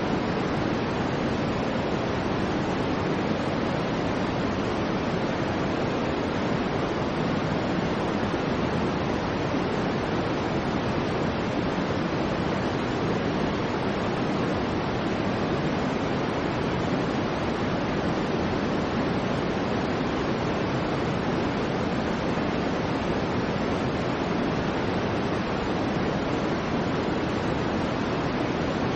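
Soft white noise for infant sleep: a steady, unchanging hiss, weighted toward the low end so it sounds like distant surf rather than a bright hiss.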